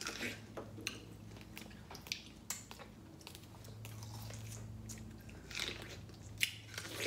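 Someone biting and chewing juicy star fruit: scattered short wet smacks and small crunches over a faint steady hum.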